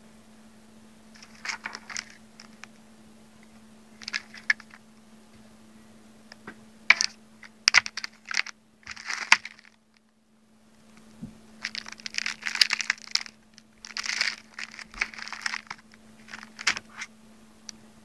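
Metallised foil packaging bag crinkling and crackling in irregular bursts as the reels of LED strip and the remote are handled on it. A faint steady hum runs underneath.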